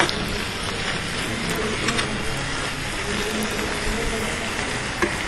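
Snails and mushrooms sizzling and simmering in white wine in a stainless sauté pan while the alcohol cooks off, stirred with a metal spoon that clicks lightly against the pan a few times.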